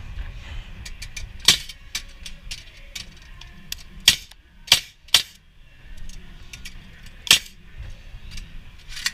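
Pneumatic framing nailer firing nails into wooden framing: five sharp shots at uneven intervals, with lighter clicks and knocks between them.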